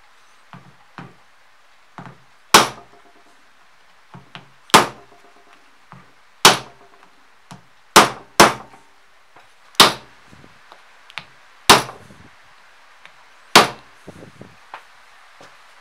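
Hammer blows on a wooden block held against a snap fastener in thick leather, setting the snap: eight sharp strikes about two seconds apart, with a few light taps between them.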